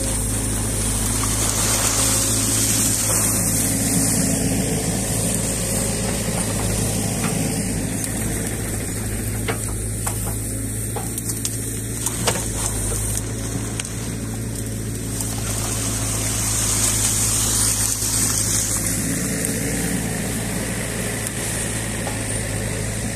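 New Holland Kobelco E50.2 mini excavator's diesel engine running steadily as its hydraulics work the ditching bucket through mud and silt. A high hiss swells and fades twice, and there are a few sharp clicks.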